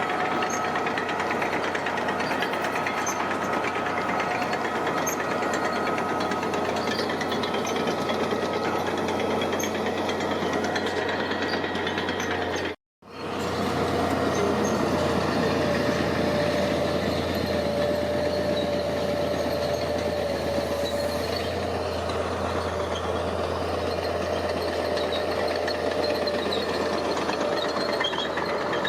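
Heavy diesel construction machinery running steadily, with a dense engine noise and a faint steady whine. The sound breaks off for a moment about halfway through, then carries on.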